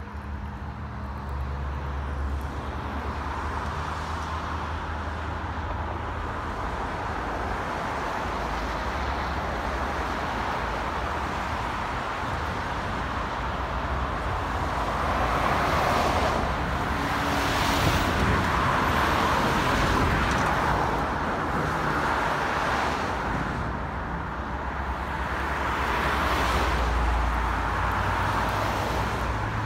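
Road traffic on a multi-lane city street: a steady hum of engines and tyres, with several cars passing close in the second half, each swelling and fading.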